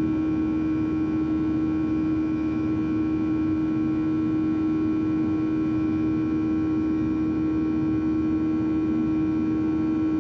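Steady cabin drone inside a Boeing 737-800: an even rushing noise with a constant low hum tone and fainter steady tones above it, unchanging throughout.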